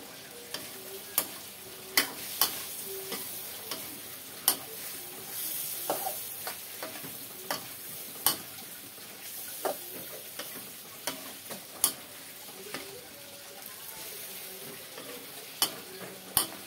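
Bitter gourd being stirred in a pan over the heat. A utensil knocks and scrapes against the pan in irregular sharp clinks, roughly one a second, over a steady sizzle.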